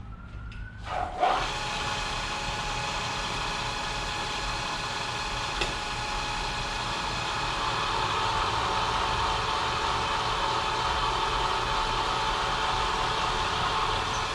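Milling machine starting up about a second in and then running steadily while drilling a hole in stainless steel, a continuous machine noise with a steady whine that grows a little louder about halfway through.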